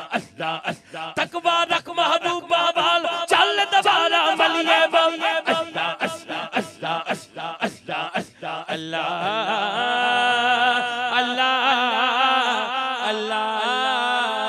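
Male voices amplified through a PA chanting the zikr "Allah, Allah" in a fast, even pulse of about two to three beats a second. About nine seconds in, the pulse gives way to a single male voice singing a long, ornamented melodic line with wavering held notes.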